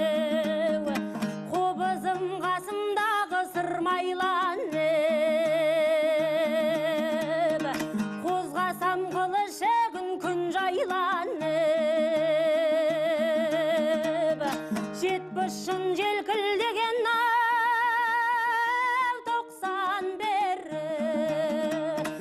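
Kazakh folk song sung by a woman, with long held notes and wide vibrato, over a string accompaniment that repeats a figure of short low notes.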